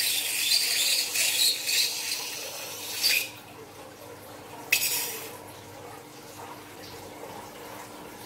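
Blue liquid squirting out of the neck of a squeezed rubber balloon and spattering into a glass baking dish: a hissing splatter for about three seconds, then one short burst a little later.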